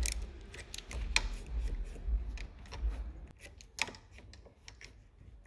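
Irregular clicks and knocks from tightening a metal hose clamp around a steering intermediate shaft's splined joint, with handling bumps in the first few seconds; the clicking thins out after about three seconds as the clamp takes up the play in the splines.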